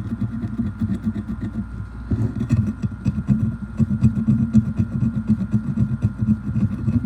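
A brass dowel scraping rapidly back and forth over a WD-40-soaked steel shotgun barrel, a fast, uneven run of rough strokes: rust being scraped off the blued finish.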